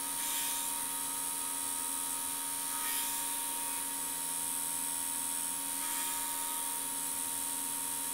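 Belt grinder running steadily with a high hiss from its abrasive belt, as a forged steel knife piece is pressed against the belt in about three brief grinding passes a few seconds apart.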